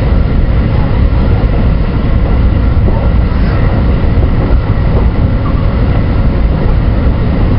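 JR West 223 series 2000 electric train running along the line, heard from its front cab: a steady, loud low rumble of running noise.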